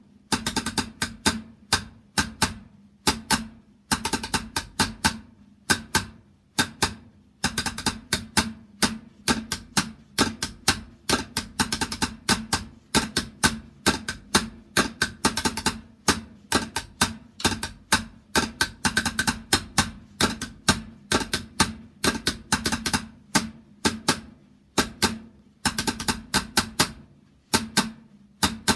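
A drum played in military-style patterns: quick flurries and rolls of sharp strokes, broken by brief pauses.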